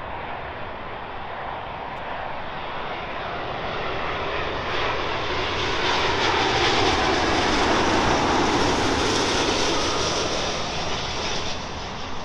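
A British Airways Boeing 777-200's twin jet engines on final approach, passing low overhead. The engine noise swells over several seconds, is loudest in the middle of the pass, then eases toward the end.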